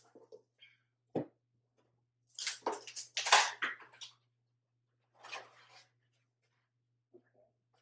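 Unboxing a barstool's shipping box and packing: a dull knock about a second in, then a stretch of rustling and scraping of packaging about two and a half seconds in, and a shorter rustle a little after five seconds.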